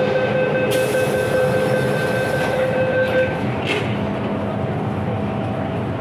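MTR Island Line M-Train metro train running, with steady electrical motor tones over rail rumble and a hiss. About three seconds in the tones give way to a lower, different pair, with a brief rattle.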